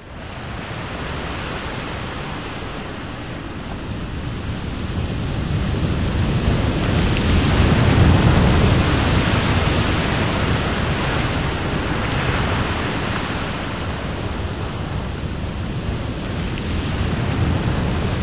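Rushing noise of surging water, swelling to its loudest about eight seconds in and rising again near the end.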